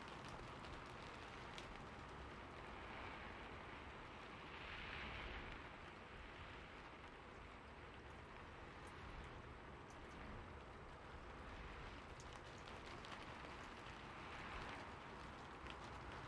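Steady rain falling, an even hiss with scattered individual drops ticking, the hiss swelling a little twice.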